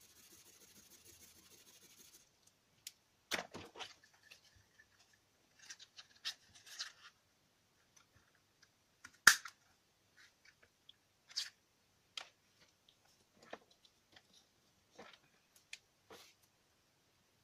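Felt-tip highlighter scratching on cardstock for about two seconds, then scattered clicks and rustles of card being handled, with a sharp snap about nine seconds in as a star-shaped craft punch cuts through the cardstock.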